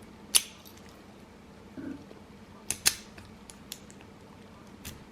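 Lock pick and tension wrench working a Master Lock No. 1 laminated padlock: a few sharp metal clicks, the loudest about half a second in and a pair near three seconds, with a softer tick near the end.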